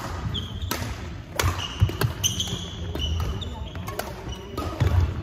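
Badminton rally: several sharp racket strikes on the shuttlecock a second or less apart, with sports shoes squeaking on a wooden court floor and heavy footfalls as the players move.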